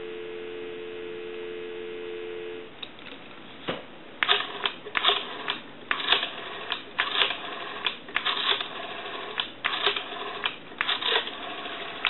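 Telephone dial tone, two steady tones together, through the first couple of seconds, then a click and the Western Electric 202's rotary dial being turned digit after digit, each digit sending a quick run of pulse clicks down the line.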